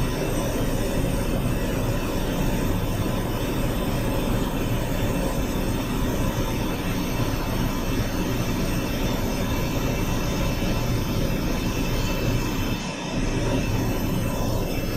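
Steady rushing noise of live steam venting during a steam blow: about 2,900 kg/h from the 16.8 bar boiler header passing through the open blowdown valve and out the stack to warm the turbine's main steam line.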